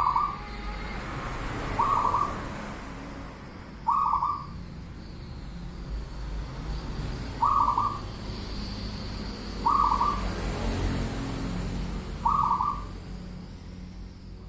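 Caged zebra dove (perkutut) cooing: six short coos, each under half a second, repeated every two to three seconds.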